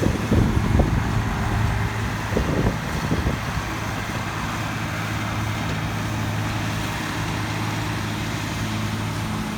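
A vehicle engine running steadily at a low, even hum, with a few irregular knocks and rumbles in the first few seconds.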